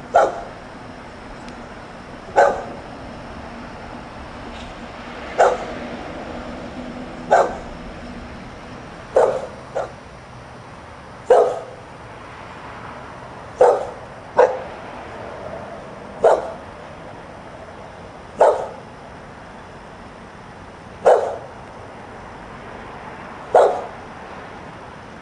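Boxer dog barking outside: single sharp barks, one every two to three seconds, about a dozen in all, with two of them coming in quick pairs. This is the steady, repetitive barking of a dog left alone outdoors.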